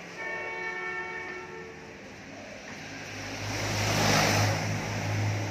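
A vehicle horn sounds once, held for about a second and a half, then a light truck's engine runs loud as the truck drives past close by, loudest about four seconds in.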